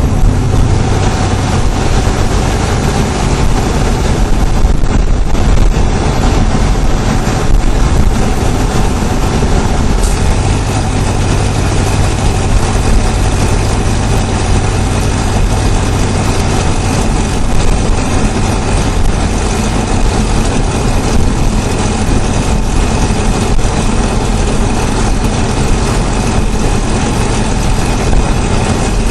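GM LS4 5.3-litre V8 engine running steadily, heard close up from under the hood, with a chatter in its sound. The owner suspects the chatter is a Displacement on Demand problem that is getting worse, though he has been told it may be normal; an exhaust leak has been ruled out.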